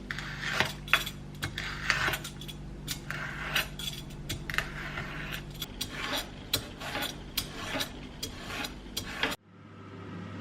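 Kitchen utensils clinking and knocking against dishes and pans in many irregular sharp clicks over a steady low hum, cutting off abruptly near the end.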